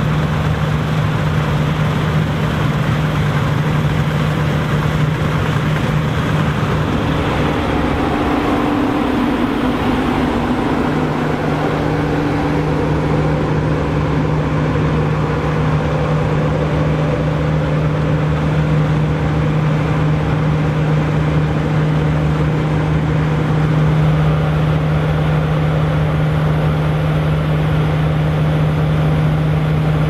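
New Holland combine harvesters running under load while threshing barley: a steady, loud drone of diesel engines and threshing machinery with a strong low hum. The hum wavers for a few seconds about a third of the way in, and a higher tone joins it from then on.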